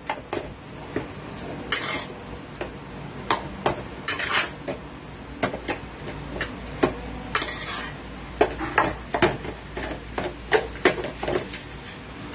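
Metal spatula stirring and turning boiled potatoes and onion in a nonstick frying pan: irregular clinks and knocks against the pan, with a few longer scrapes along its bottom.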